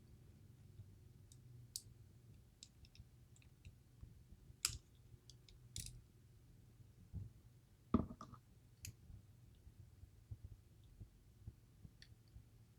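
Faint, scattered clicks and ticks of small metal lock parts and tools being handled as driver pins are worked out of a DOM IX Twinstar high-security lock. A louder clatter comes about eight seconds in.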